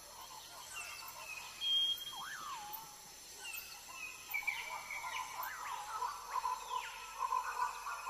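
Faint outdoor nature ambience of birds chirping and calling: short whistles and rising and falling notes, with a warbling call repeating more often near the end.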